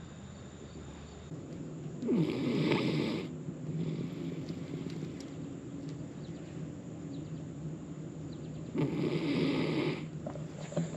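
A sleeping silky terrier snoring: two long snores of about a second each, roughly seven seconds apart.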